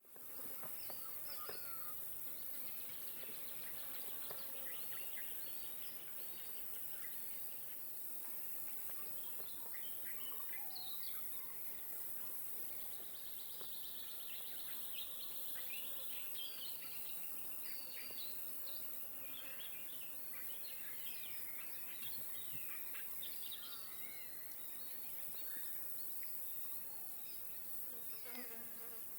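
Lakeside wildlife ambience: a steady high insect buzz, with many short bird chirps and trills scattered over it.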